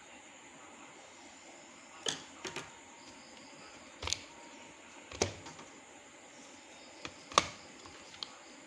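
Laptop parts and tools being handled during disassembly: about seven separate sharp clicks and taps spread over several seconds, the loudest near the end, over a steady low hiss.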